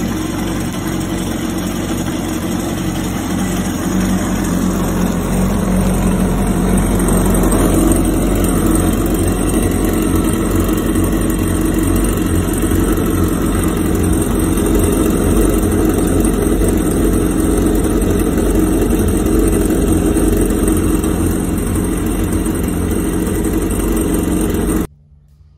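Kawasaki STX-15F jet ski's four-cylinder four-stroke engine idling steadily on a garden flush hose, heard up close inside the open hull. It is being run as a leak test for water entering the hull through the exhaust couplers.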